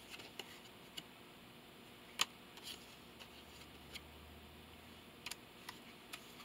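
Tarot cards being handled and flipped through one by one: a few faint, irregular clicks and taps, the sharpest a little over two seconds in.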